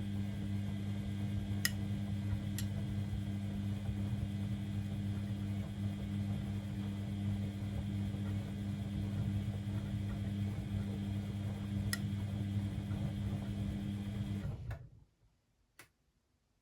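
Beko WML 71433 NP washing machine running with a steady hum and a few faint clicks, then stopping abruptly near the end; a single click follows.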